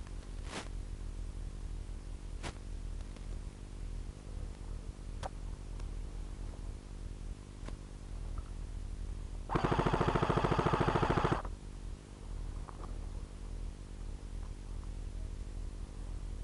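Airsoft electric gun firing one full-auto burst of just under two seconds, a rapid rattle of shots past the middle. A few faint single sharp clicks come before it over a steady low hum.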